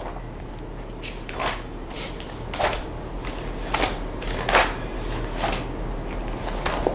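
A series of short, irregular handling noises at a desk, about a dozen scrapes and taps spread over several seconds, over a low steady electrical hum.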